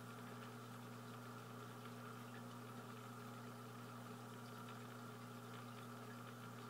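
Faint, steady low hum with a light hiss from an aquarium pump running.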